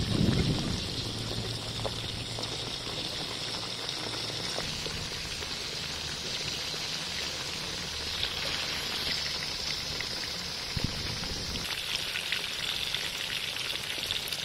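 Quail, potatoes and onions frying in hot oil in a steel wok: a steady sizzle with fine crackling, getting stronger from about halfway through. A brief low rumble at the very start.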